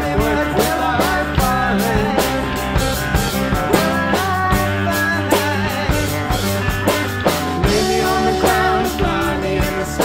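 Live rock band playing: electric guitars and a drum kit keep a steady beat, with a tambourine and a singing voice over them.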